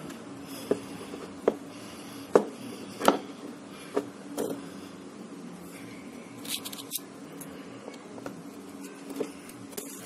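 Sharp plastic clicks and snaps, about a dozen at irregular intervals and loudest in the first half, as a fingernail prises the glued display and frame edge of an Oppo A3s smartphone apart.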